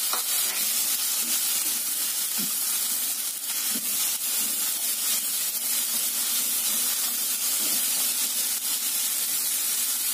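Sliced onion and red and yellow bell peppers sizzling in oil in a nonstick frying pan, a steady hiss, while a spatula stirs them with an occasional light scrape against the pan. The vegetables are being sautéed until they wilt.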